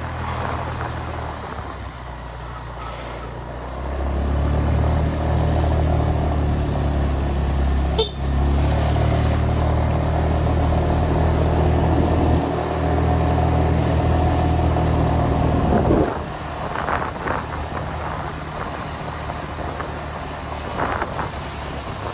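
Vehicle engine climbing a steep mountain road, running steadily and growing louder as it pulls under load a few seconds in. It has a short click about eight seconds in, then drops off sharply to a quieter run about sixteen seconds in.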